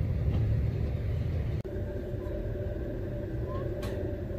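Low rumble of a miniature railway train. A cut about a second and a half in leads to the steady hum of a small narrow-gauge locomotive standing at the station, with a single sharp click near the end.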